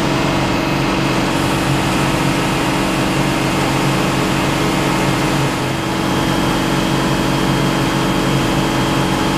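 Water tanker truck's diesel engine running steadily while its roof-mounted water cannon shoots a jet of water, a steady rushing hiss over the engine's hum.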